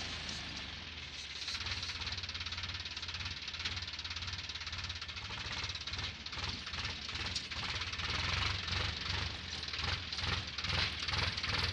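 Sonalika tractor's diesel engine running under load as it drags a level plate through manure. Its chugging pulses grow louder from about halfway through to the end.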